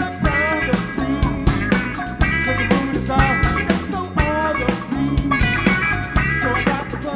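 Live band playing an instrumental funk groove: drum kit on a steady beat, bass and guitar, with a melodic lead line moving above them.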